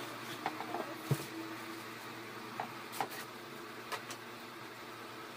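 A few light clicks and knocks from the helmet and braid being handled, over a steady faint hiss.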